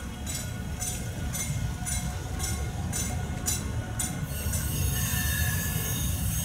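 South Shore Line electric multiple-unit train moving along the platform: a steady low rumble with light high clicks about twice a second, giving way about four seconds in to a faint wheel squeal and hiss.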